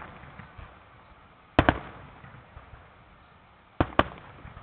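Aerial firework shells bursting in the sky: a sharp bang about a second and a half in, then two bangs close together near the end, each trailing off briefly.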